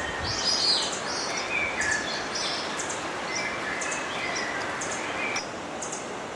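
Small songbirds chirping and tweeting in short high calls over a steady rushing of river water.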